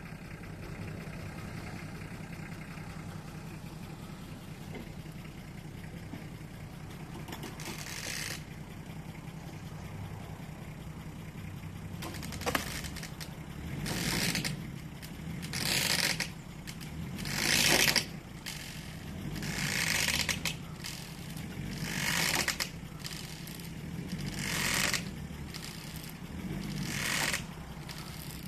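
Nissan Patrol Y60 engine running steadily. From about halfway there is a series of loud surges every two seconds or so, each building up and cutting off sharply, as the 4x4 strains on a rope to pull down a roof truss.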